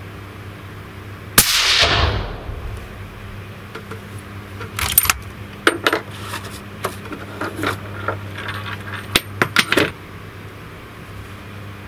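A single shot from a .308 Win. rifle through a Hausken JD 224 XTRM suppressor fouled with powder residue, a sharp crack about a second and a half in with a short echoing tail, measured at around 105–106 dB. Several sharp metallic clicks and clinks follow in the seconds after.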